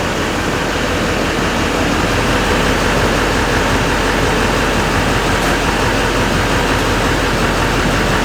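GMC Sierra 2500HD's 6.6-litre Duramax V8 diesel idling steadily, just restarted after a FASS lift pump install.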